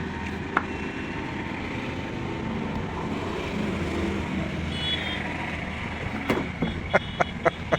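A vehicle engine running steadily. Near the end comes a quick run of sharp metallic taps or knocks, about four or five a second.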